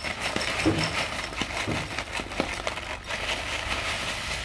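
Crunchy muesli being poured from its packet into a bowl: a rustle of crinkling packaging with many small clicks as the dry clusters land.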